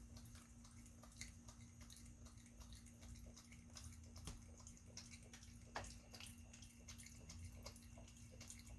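Faint small splashes and drips of a raccoon handling food in a shallow pool of water, with a steady low hum underneath.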